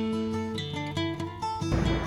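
Background music led by plucked acoustic guitar, with notes changing about every half second.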